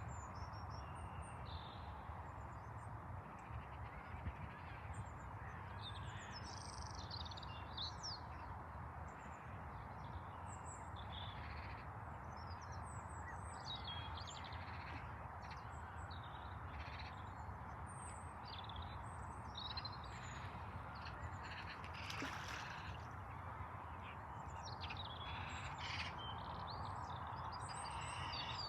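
Birds calling on and off, many short high calls, over a steady background rumble.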